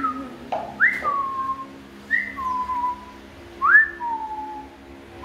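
A person whistling a repeated two-note call: a quick upward slide, then a lower held note, about every second and a half.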